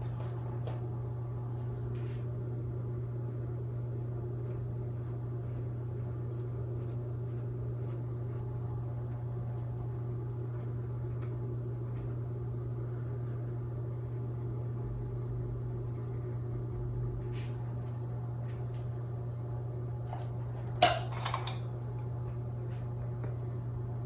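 Steady low mechanical hum of room equipment, with a single sharp click and a brief rattle near the end.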